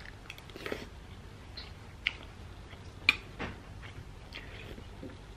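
Eating sounds: a metal spoon clicking and scraping against a ceramic bowl now and then, with soft chewing. The sharpest click comes about three seconds in.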